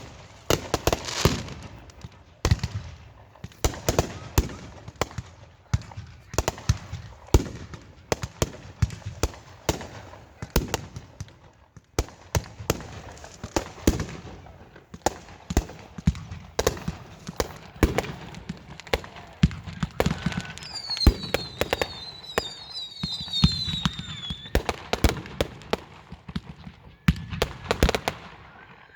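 Fireworks going off continuously: a dense, irregular barrage of bangs and crackles, some sharp and close, others dull and distant. About two-thirds of the way through there is a run of short, high, falling whistles.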